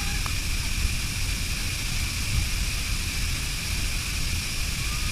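Waterfall pouring, a steady rush of falling water with a deep rumble underneath.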